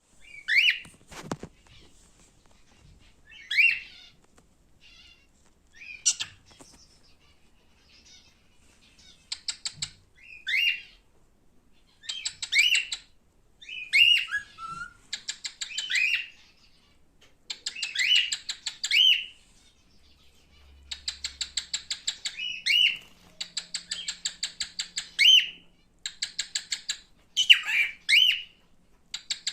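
Male cockatiel calling: short, rising whistled chirps, interspersed with fast rattling chatter that comes in runs of a second or two and grows busier after about twelve seconds.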